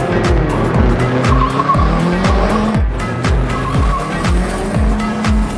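Background music with a steady, driving beat of about two kicks a second and held synth notes over it.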